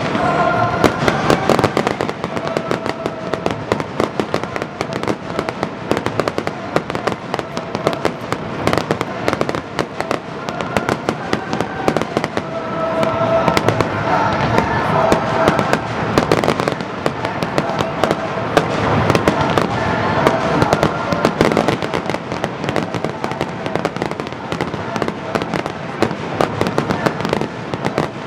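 Fireworks display: a dense, continuous barrage of bangs and crackling with no let-up.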